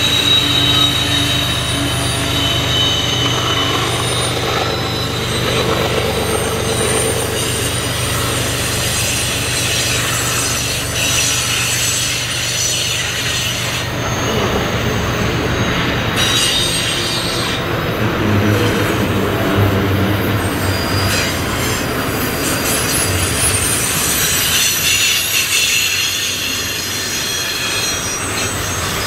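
Freight train passing close by. The diesel engine of a mid-train locomotive drones low at first and fades over the first several seconds, then loaded double-stack container well cars roll past with a steady rumble and high wheel squeal that comes and goes, strongest at the start and again near the end.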